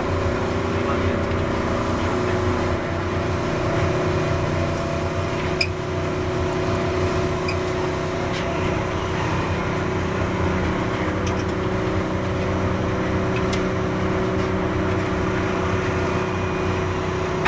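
Keihan 600 series electric train heard from on board: a steady rumble with several unchanging hum tones and a few faint clicks.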